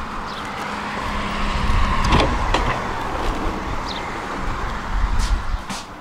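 Tram rumbling at low speed on its rails, with a steady motor hum that cuts off about two seconds in at a sharp knock. A few clicks follow, and the rumble swells near the end.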